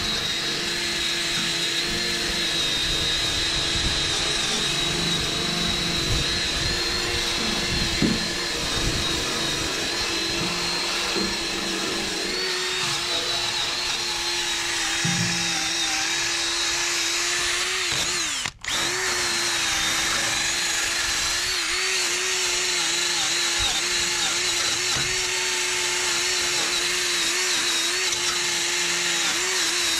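Ryobi cordless drill spinning a brass wire wheel brush against rusty steel, scrubbing rust off a cutter deck. It is a steady motor whine whose pitch dips and wavers as the brush is pressed in. It cuts out for an instant about two-thirds of the way through and picks straight back up.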